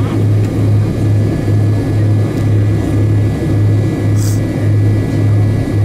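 Delta MD-88's rear-mounted Pratt & Whitney JT8D engines running at low power on the ground, heard from inside the cabin near the tail: a loud low drone that throbs about twice a second, with a faint steady whine above it. A brief hiss about four seconds in.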